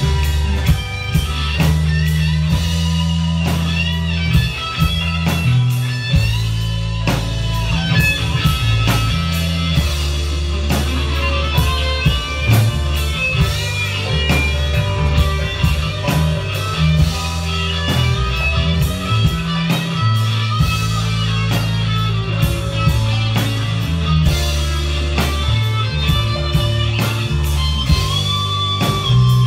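Live rock band playing: a lead electric guitar plays a bending melody over steady low bass notes and a driving drum beat.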